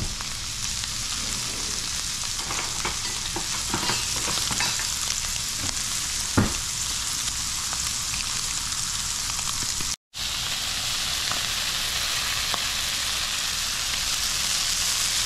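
Fish fillets sizzling steadily as they fry in butter in a cast iron skillet, with a spatula clicking and knocking against the pan now and then, the sharpest knock about six seconds in. The sizzle drops out for an instant about two-thirds of the way through, then carries on.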